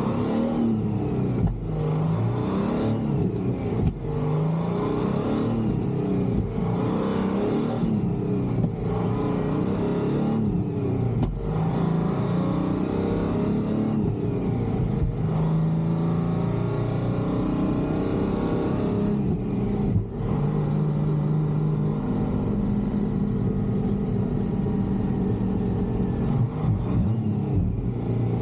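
1978 Peterbilt cabover's Detroit 6-71 two-stroke diesel pulling through the gears. The engine pitch climbs and drops back again and again as it is shifted through the 13-speed, then holds steadier for a stretch.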